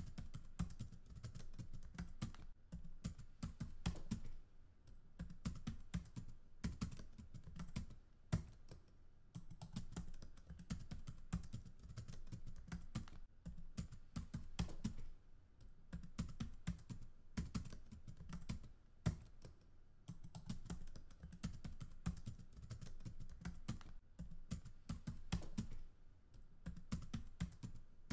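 Typing on a computer keyboard: rapid runs of keystrokes with brief pauses every few seconds.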